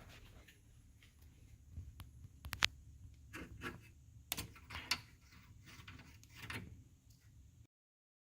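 Faint scattered clicks, knocks and short rustles, with one sharp click about two and a half seconds in; the sound cuts off completely near the end.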